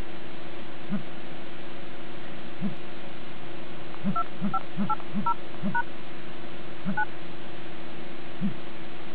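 Stylus tapping on the touchscreen of a T42 dual-SIM phone, a Samsung F480 copy, each digit keyed on the dial pad sounding a short dual-tone keypad beep: five quick beeps about four seconds in, and one more near seven seconds. A steady low hum runs underneath.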